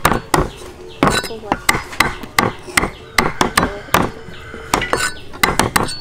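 Meat cleaver chopping the claw tips off raw chicken feet on a wooden chopping block: a quick run of sharp chops, two to three a second, unevenly spaced.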